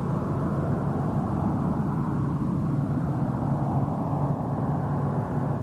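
Steady low engine rumble with a constant low hum running underneath.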